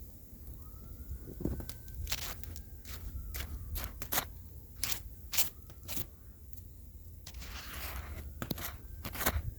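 Bonfire crackling, with irregular sharp pops and snaps over a low steady rumble.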